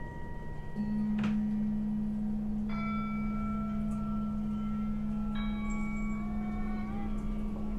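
Ambient sound-installation music: a steady low drone enters under a second in, and bell-like struck tones ring out over it twice, a few seconds apart, each leaving several long sustained tones.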